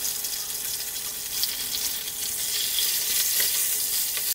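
Flour-coated whole fish and ginger slices sizzling steadily in hot oil in a wok, with a couple of faint clicks near the end.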